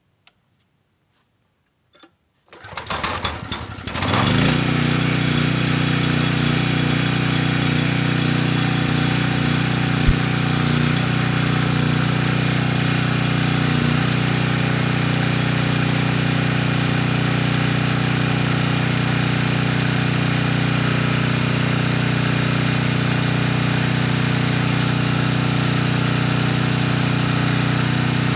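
Briggs & Stratton Storm Responder generator's single-cylinder overhead-valve engine pull-started, catching about three seconds in. It then runs steadily at its governed speed, with the generator's output at about 60 Hz.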